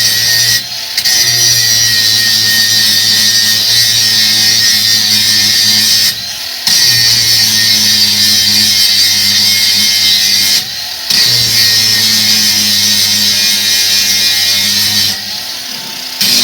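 Cordless angle grinder with a grinding wheel grinding a weld on steel angle iron: a steady motor hum under a loud grinding hiss, easing off briefly four times as the wheel comes off the work.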